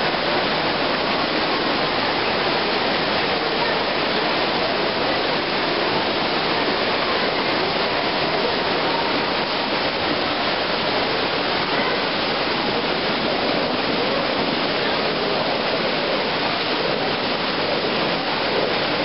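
Water jets of a fountain splashing steadily into its basin.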